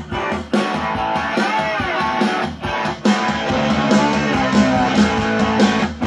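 Guitar music played back through a vintage Tesla 1PF 068 96 speaker box, whose single Tesla ARE 667 full-range driver reproduces it in a speaker sound test.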